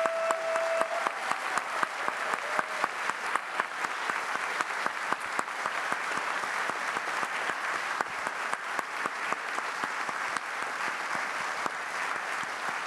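Large audience applauding steadily, a dense patter of many hands clapping, with a short held call from someone in the crowd at the very start.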